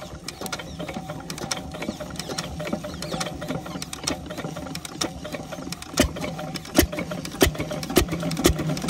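Single-cylinder stationary diesel pump-set engine being cranked by hand: a rapid mechanical clatter as the flywheel turns over, then about six seconds in the engine starts firing, with heavy knocks coming faster as it catches.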